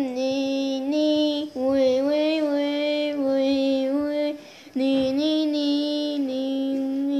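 A child singing a wordless tune in long held notes, breaking off briefly about four seconds in.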